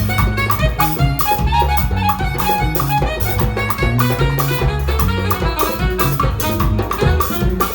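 Band music with a steady drum-kit beat, a moving bass line and quick melodic notes on top.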